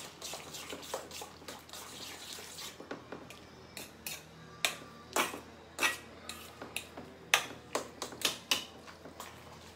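A spoon clinking and scraping against the bowl as mashed roasted eggplant is stirred together with crushed onion. The clicks come at irregular intervals and grow more frequent partway through; the sharpest is about seven seconds in.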